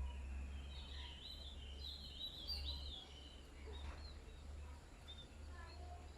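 Small birds chirping: a quick run of high chirps from about one to three seconds in, then a few scattered calls, over a steady low hum.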